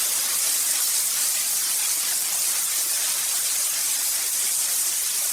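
Steady high hiss of a compressed-air paint spray gun spraying continuously.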